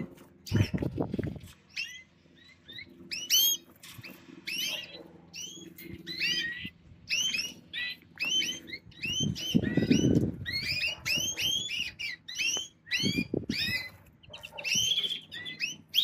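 Many red mosaic canaries in stacked breeding cages chirping, a dense chatter of short, quick call notes overlapping throughout. A few brief low bursts of noise come in about a second in and again near the middle.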